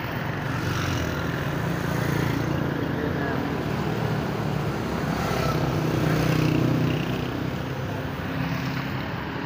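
City road traffic: engines of passing cars and motorcycles with tyre noise, swelling as vehicles go by about two and six seconds in.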